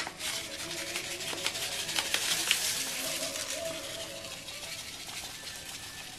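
Pink Himalayan crystal salt sprinkled from a bag onto mackerel on aluminium foil: a soft, even hiss of many tiny grain ticks that slowly fades toward the end.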